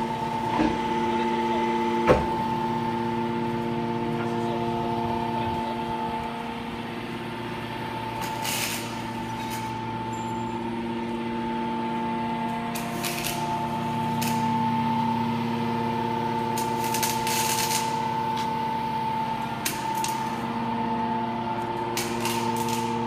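Hydraulic power unit of a 200-ton scrap metal baler running, with a steady multi-pitched whine from its electric motors and pump. A sharp clank comes about two seconds in, and several short hissing bursts follow later on.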